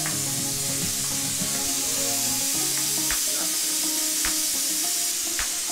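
Pressure cooker venting steam through its whistle, a steady hiss. It is the first of the four whistles counted to know that the dal is done.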